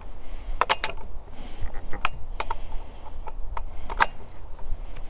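Irregular sharp metal clicks and clinks of a chainsaw scrench working the bar nuts on the side cover of a Stihl MS271 Farm Boss chainsaw, tightening them back up after the chain tension has been set.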